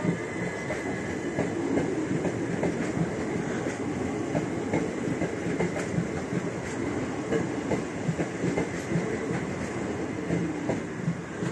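Southern Class 377 Electrostar electric train running past at speed, its steel wheels giving a steady, irregular clatter over the rail joints as the carriages go by.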